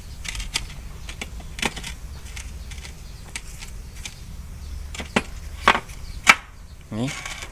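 Scattered light clicks and knocks of small hydraulic valve parts being handled on a metal workbench, with a few sharper knocks in the second half, over a steady low hum.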